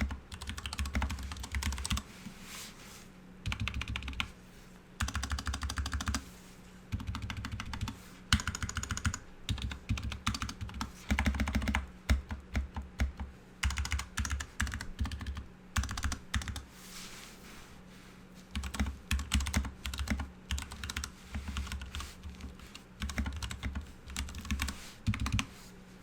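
Typing sound test on a GK61 60% mechanical keyboard: quick runs of key clacks about a second or so long, with short pauses between.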